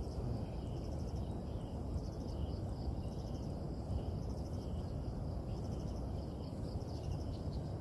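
Outdoor ambience: insects chirping in short, rapidly repeated high pulses over a steady low rushing noise.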